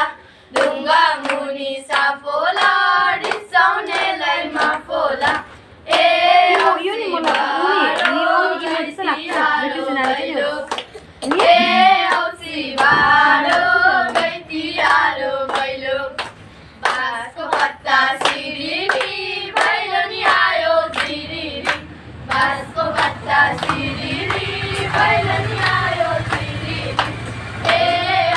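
A group of girls singing a song together in unison while clapping their hands in rhythm.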